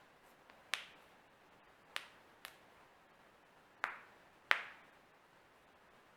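Human joints being cracked: a series of sharp, dry pops, five clear ones and a faint one, irregularly spaced, with the loudest about four and a half seconds in.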